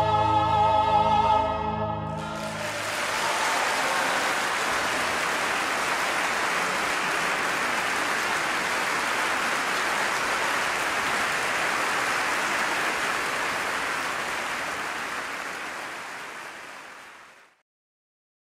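A soprano with choir and pipe organs holds the final note, which breaks off about two seconds in. Audience applause follows and fades out near the end.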